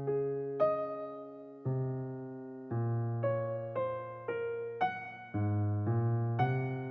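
Background music: a slow, gentle electric piano tune, notes struck about once or twice a second over a low bass, each ringing and fading away.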